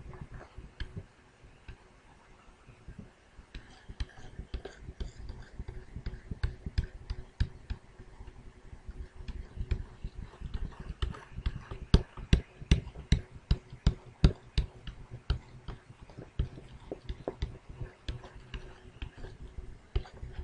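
Stylus pen tapping and stroking on the touchscreen of an HP TouchSmart tm2 laptop while sketching: irregular light clicks and taps, coming thickest and loudest in the middle.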